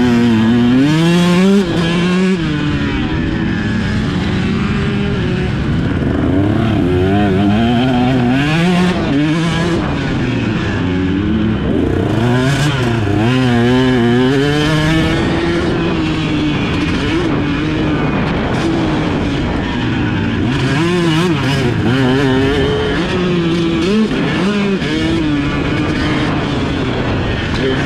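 Motocross dirt bike engine heard from on the bike, revving up and dropping back again and again as the rider accelerates, shifts and rolls off around the track.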